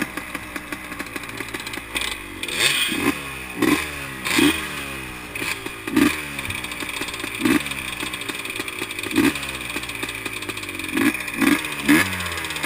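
Yamaha Blaster's single-cylinder two-stroke engine, tuned, being blipped over and over at low speed. Each rev rises sharply and falls back toward idle.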